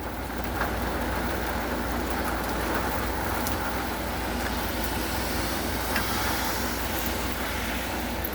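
Light to moderate rain falling steadily on cement, an even hiss over a low steady rumble.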